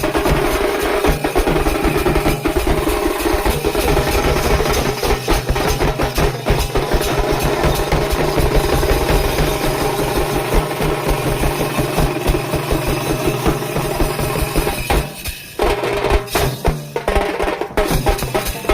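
Festive music with rapid, dense drumming and percussion over steady held tones, thinning out briefly about fifteen seconds in before the drums return.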